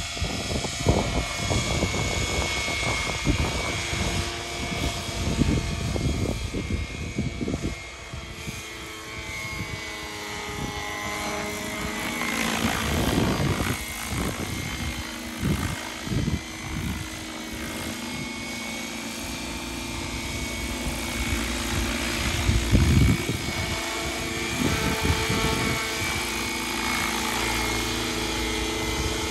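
Radio-controlled scale MD 500 helicopter on an Align T-Rex 600 frame flying, with the steady whine of its drivetrain and the chop of its rotor. The pitch sweeps as it passes overhead about twelve to fourteen seconds in, and it grows louder near the end as it comes down low. Low buffeting hits the microphone throughout.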